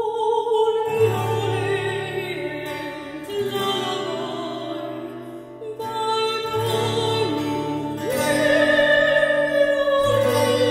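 Classical vocal music, an operatic singer holding long notes over a low bass accompaniment, played through a car's high-end Accuton speaker system.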